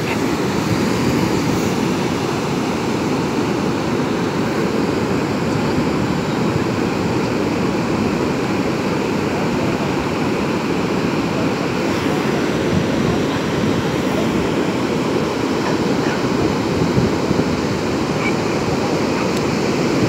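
Ocean surf: a steady rush of small waves breaking and washing up over the wet sand.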